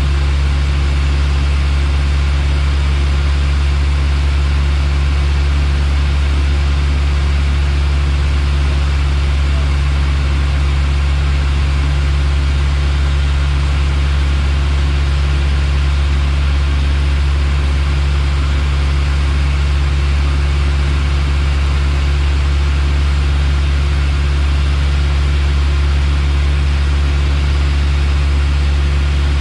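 Piper Warrior's four-cylinder Lycoming engine and propeller running steadily, heard inside the cockpit: a loud, deep, constant hum under an even hiss.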